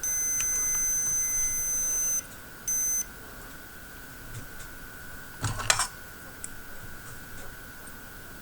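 An electronic beeper sounds a steady high beep for about two seconds, then a short second beep. A brief handling noise follows about five and a half seconds in, over a faint steady whine.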